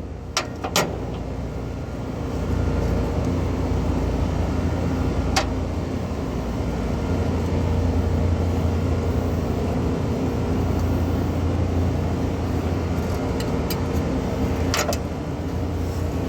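Steady low machine hum, a little louder from about two and a half seconds in, with a few sharp clicks or knocks at scattered moments.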